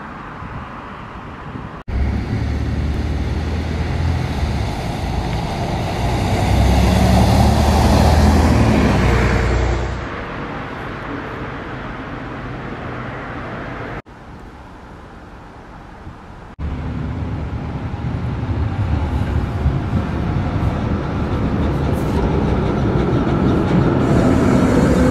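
Road traffic noise with a vehicle engine rising in pitch about six to nine seconds in. Later the SA136-016 diesel railcar pulls into the station, its engine and wheel noise growing louder toward the end, with a falling squeal as it brakes.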